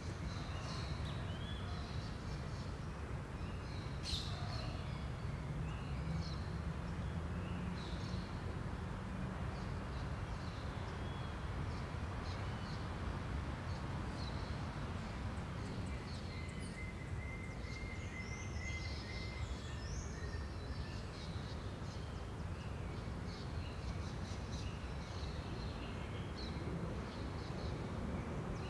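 Outdoor ambience of scattered bird chirps and calls over a steady low rumble.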